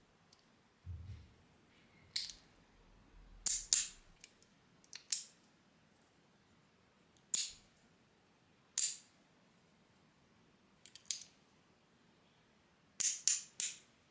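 Copper three-layer magnetic fidget slider being worked, its metal plates snapping together with sharp clicks at irregular intervals, some in quick pairs and three in a row near the end. A soft low thump about a second in.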